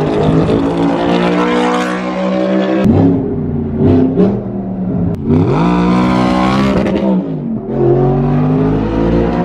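Audi R8 sports car engine revving hard as it accelerates through the gears, its pitch climbing and then dropping sharply at each upshift, several times.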